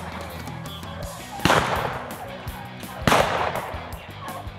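Two shotgun blasts about a second and a half apart, each with a short trailing echo, fired at a rabbit run out of the brush by beagles.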